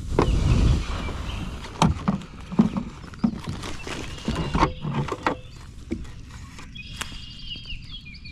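Irregular hollow knocks and thuds on a kayak, as gear and paddle are handled aboard, with birds chirping near the end.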